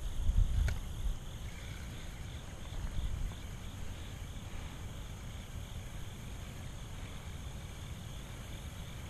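Insects chirping in a steady pulsing rhythm, about three chirps a second, with a fainter steady high buzz behind them. A louder low rumble on the microphone comes in the first second and again about three seconds in.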